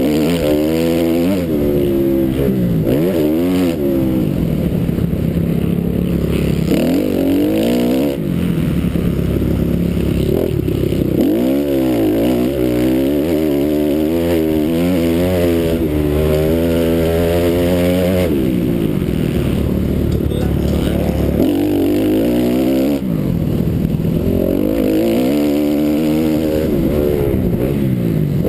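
450cc four-stroke motocross bike's single-cylinder engine at race pace, its revs climbing and dropping over and over as the throttle is worked through the gears.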